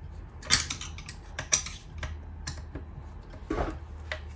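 Small metal clicks and taps of a hex driver, bolt and aluminium rotor head being handled as the head bolt is worked into an RC helicopter's main shaft: a handful of sharp clicks roughly a second apart, over a low steady hum.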